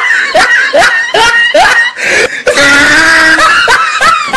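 Loud, shrill wailing cries from a voice: short yelps that bend up and down about three times a second, with one longer held cry about two and a half seconds in.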